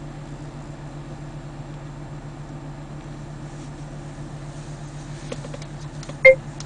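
Steady low hum in a stationary car's cabin. About six seconds in, the first loud beat of a hip-hop track starts through the car speakers from the newly paired Bluetooth stream.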